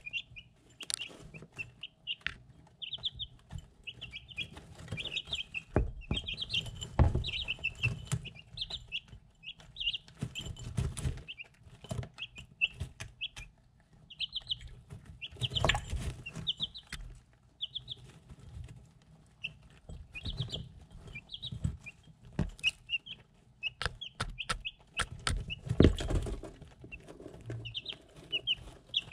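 Three-week-old chicks peeping in short, high trills, with sharp clicks of beaks pecking at a ceramic dish as they eat and drink, and a few dull thumps.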